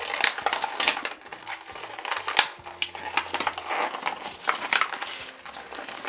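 Plastic and paper packaging crinkling and rustling as it is handled and torn open, with sharp crackles and snaps.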